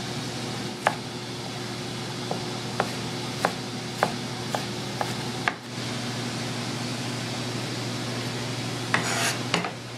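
Chef's knife chopping a tomato on a plastic cutting board: about eight sharp, irregularly spaced taps over the first five seconds or so, over a steady background hum. A few softer knocks follow near the end.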